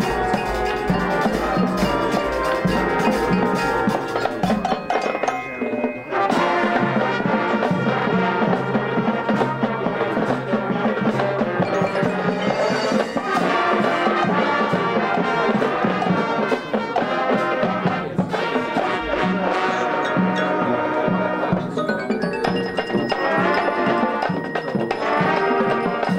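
High school marching band playing its field show: brass with drums and front-ensemble mallet percussion, with a brief break about six seconds in before the full band comes back in.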